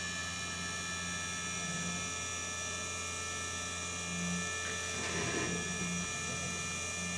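A 3018 desktop CNC machine running with a steady electrical hum and several steady high-pitched whines, with a short rougher noise about five seconds in.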